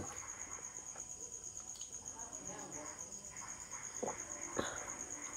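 A cricket chirping steadily in a high, fast pulsing trill. About four seconds in come two light knocks as a plastic cup is picked up.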